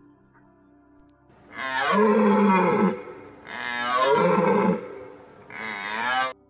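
Deer stag bellowing: three long, loud calls, each falling in pitch, starting about a second in, over background music. Short high bird chirps come just before the calls.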